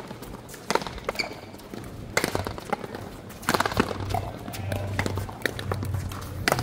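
Wooden paletas striking a hard ball, and the ball smacking the frontón wall and floor, in sharp clustered cracks every one to three seconds of a rally. A low steady hum runs underneath from about two seconds in.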